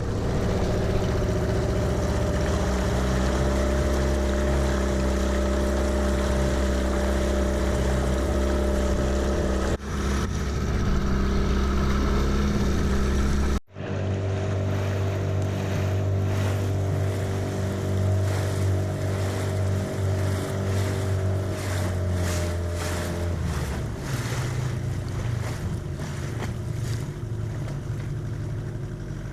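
Motorboat engine running steadily, with water and wind noise, cut off abruptly twice.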